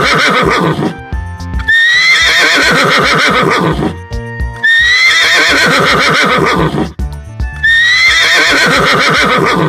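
Horse whinnying, the same loud neigh heard three times about three seconds apart, each rising at first and then falling away in a shaky whinny, over background music.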